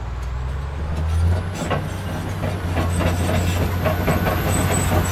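Caterpillar D11 dozer's 32-litre diesel engine running with a steady low rumble as the machine moves, louder from about a second in. Its tracks clank in quick, uneven strokes from about a second and a half on.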